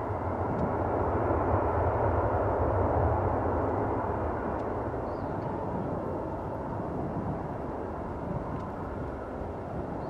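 The four CFM56 turbofan engines of an Airbus A340-300 at takeoff thrust during its takeoff roll, heard from behind: a steady, dense jet noise that swells over the first couple of seconds and then slowly fades as the airliner moves away.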